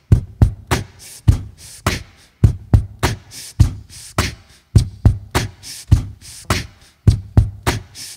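A repeating percussive beat with no pitched notes: deep kick-like thumps alternating with sharper snare-like snaps, about three to four hits a second, with a short break about seven seconds in.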